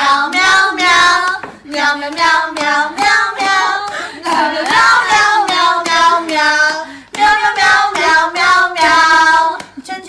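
A high, child-like voice singing a tune in short syllables, with a brief break about seven seconds in.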